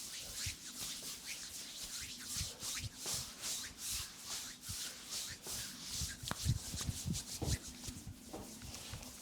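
Hands rubbing and stroking bare skin in a back massage: repeated swishing strokes, about two a second, with a few soft low thumps in the second half.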